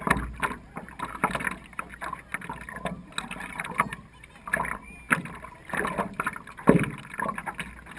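Water splashing and lapping against a stand-up paddleboard as it is paddled, coming in irregular surges.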